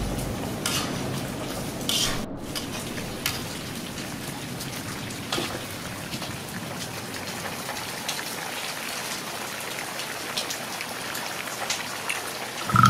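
Vegetable sticks deep-frying in hot oil in a wok: a steady crackling sizzle, with a few sharp clicks of metal tongs against the pan.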